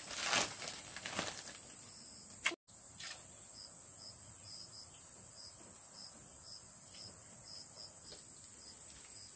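Insects shrilling steadily in a high, even drone, with a shorter chirp repeating about two to three times a second. A brief crinkle of plastic at the start.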